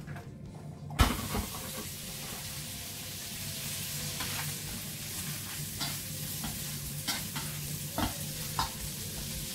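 Diced meat tipped into a hot frying pan about a second in: a sudden knock, then steady sizzling. A spatula stirring it clicks and scrapes against the pan now and then.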